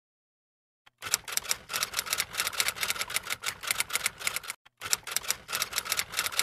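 Typing sound effect: fast, irregular key clicks that start about a second in, stop briefly after four and a half seconds, then resume.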